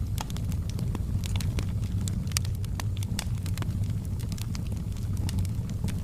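Wood fire burning, with frequent sharp, irregular crackles and pops from the firewood over a steady low rumble.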